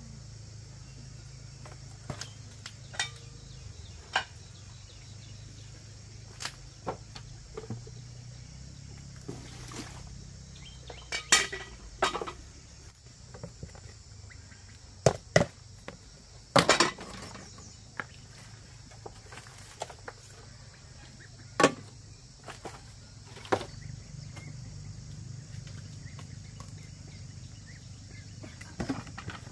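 Scattered sharp knocks and clinks, some in quick pairs, over a steady chorus of insects.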